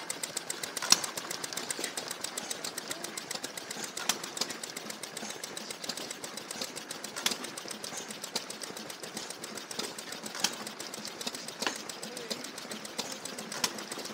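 Small vintage stationary engines running: a quick, light, even clatter of ticks, with a sharper crack every few seconds.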